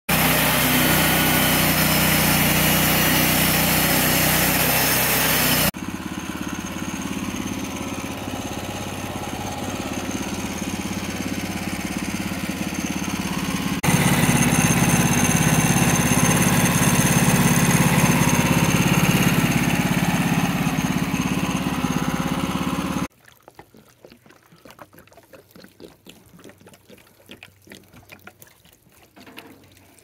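Honda GX petrol engine of a portable band sawmill running steadily under load while sawing a cherry log, cut together in three stretches that jump abruptly in loudness. Most of the way through, the engine sound stops abruptly and only faint scattered clicks remain.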